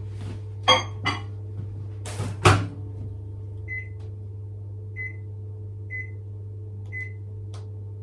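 Two ringing clinks, then a loud knock about two and a half seconds in as the Panasonic microwave's door is shut on the mug. This is followed by four short identical keypad beeps about a second apart as the power and cooking time are set, over a steady low hum.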